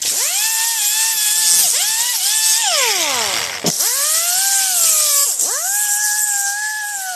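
Grinder spinning a 36-grit grinding disc: a high whine that sags in pitch each time the disc is pressed into the work and climbs back as it is eased off, under a harsh grinding hiss. About three and a half seconds in the whine drops almost to a stop and spins back up.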